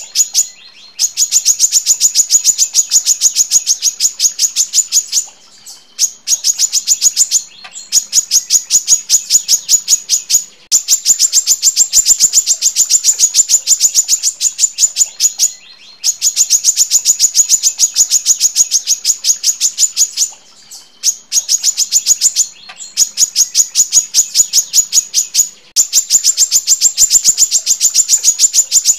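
Female brown-throated sunbird (kolibri kelapa) calling in long, tight runs of sharp, high chips repeated rapidly at about eight to ten a second; each run lasts a few seconds and is followed by a brief pause before the next.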